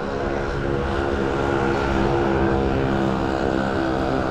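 A motor vehicle's engine running at a steady speed: an even, low hum.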